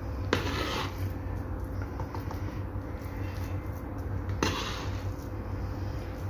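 Metal spoon scraping against a small bowl as dough is scooped and pressed into it, two short scrapes about four seconds apart, the first just after the start.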